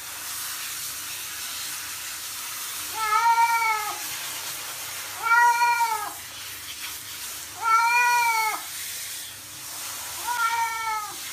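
A wet cat meowing four times, evenly spaced, each meow long and drawn out, rising then falling in pitch. Under the meows runs the steady hiss of a handheld shower head spraying water on it.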